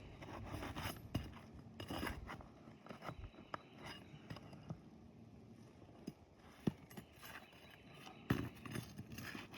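Scattered metallic clinks and scrapes as asphalt roof shingles are worked loose and roofing nails pried out, with a few sharper clicks spread through.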